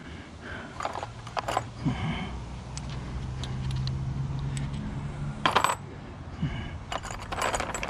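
Steel sockets clinking against each other as they are handled in gloved hands: a scattered series of sharp metallic clinks, some ringing briefly, the loudest about five and a half seconds in.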